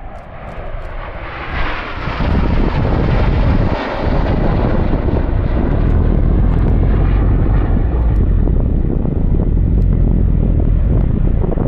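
Formation of BAE Hawk T1 jets with Adour turbofan engines flying past: the jet noise swells about two seconds in, then holds as a loud, deep, steady rumble.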